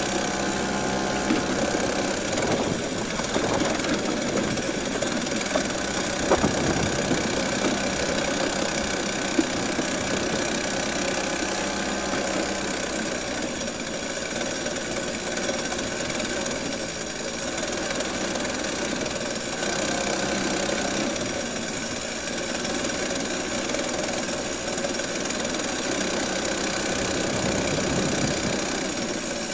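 Comer kid kart's small two-stroke engine running steadily as the kart laps a dirt track, heard close up from on board, with small dips in level along the way.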